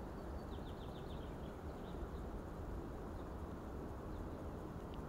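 Small birds chirping: a quick run of short, high, falling chirps about half a second in, then a few scattered single chirps, over a steady low outdoor rushing background.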